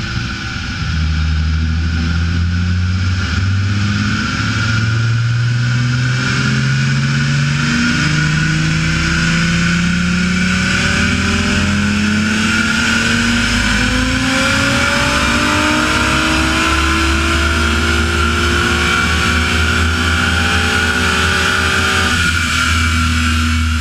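Audi S4's twin-turbo V6, tuned to about 1060 hp with twin Garrett GT3082 turbochargers, running a full-load pull on a chassis dynamometer. The engine note climbs slowly and steadily in pitch for about twenty seconds, then levels off near the end.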